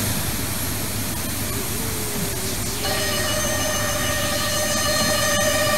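Steady roar and hiss of jet aircraft noise on an airport apron. About three seconds in, a steady high whine joins it.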